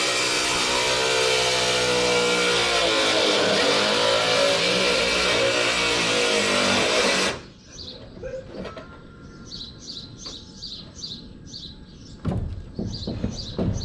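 A motor or engine running loudly, its pitch dipping about halfway through and climbing again, then cutting off abruptly after about seven seconds. After that, birds chirp over a quieter background, with a few knocks near the end.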